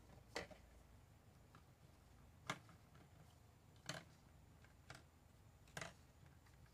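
Five short, sharp clicks spaced one to two seconds apart, the fourth fainter, over quiet room tone.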